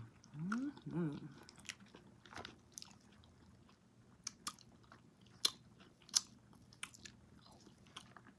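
Close-miked eating of king crab legs: quiet chewing and biting broken by a handful of sharp clicks and cracks, the loudest about five and a half and six seconds in.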